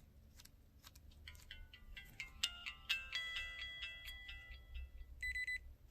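A flip phone's little speaker playing a short electronic tune of stepped beeping notes, ending in a quick burst of rapid beeps, with a few faint clicks before it. The phone is a Samsung Gusto U360 that has been through a water test.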